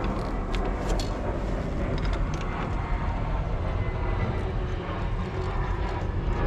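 A steady low rumble with scattered light clicks and taps throughout.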